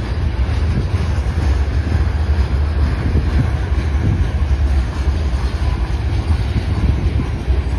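Freight cars (covered hoppers and boxcars) rolling past on steel rails, a steady rumble of wheels on track, with wind buffeting the microphone.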